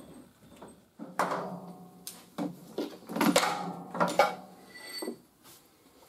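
Metal clanks and knocks from the tow chain and hook being handled, a run of several sharp strikes with brief ringing between about one and five seconds in.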